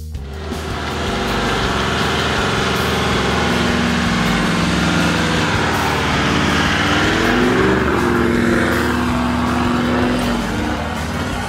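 Toyota Land Cruiser 76 Series V8 turbo-diesel running steadily under load as it tows a heavy boat trailer over beach sand, its pitch shifting up and back down around the middle.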